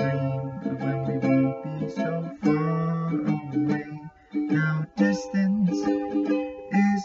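A man singing a slow love song while strumming a ukulele, heard in the small, close space of a car cabin. The playing and singing break off briefly about four seconds in, then resume.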